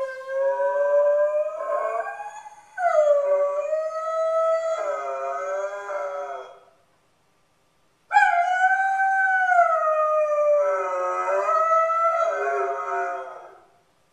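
A Weimaraner howling while left home alone: two long howls, each about six seconds, with a silent gap of about a second and a half between them. The pitch wavers toward the end of each howl.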